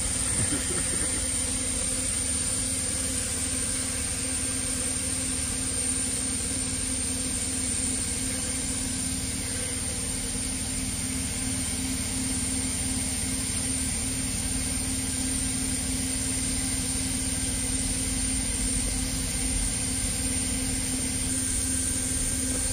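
Graffiti-removal machine running steadily while its cleaning head, fed by a suction hose, is held against a rendered wall: a constant hum with a high steady hiss.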